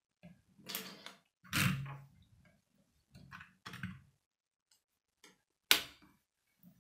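Plastic Lego pieces being handled: a series of short clicks and knocks, with one sharp clack near the end as a long Lego plate is set down on a wooden table.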